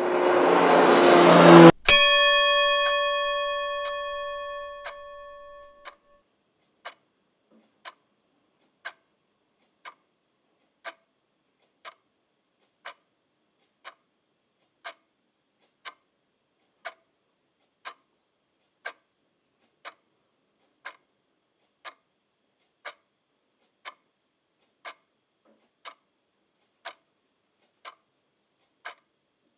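A loud swelling roar with a low drone is cut off suddenly about two seconds in by a single struck chime, which rings and fades over about four seconds. Then a clock ticks evenly, about once a second.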